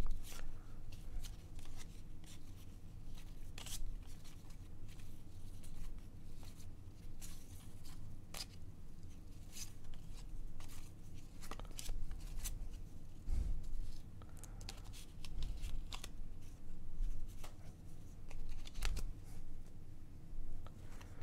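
1990 Upper Deck baseball cards flipped through by hand, each card sliding off the stack against the next: a run of irregular light clicks and swishes, with an occasional soft knock.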